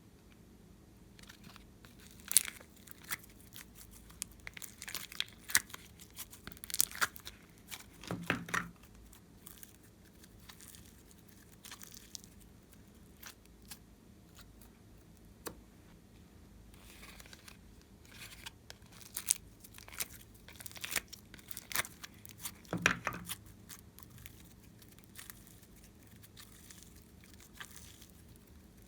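Sharp crackles, clicks and tearing sounds from hands working slime-making materials, in two busy stretches, each ending in a heavier low thud.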